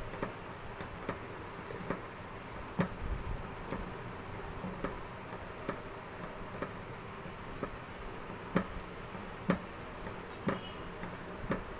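Wooden spoon stirring thick carrot and rice pudding in a metal pot, knocking against the pot about once a second, a few knocks louder than the rest.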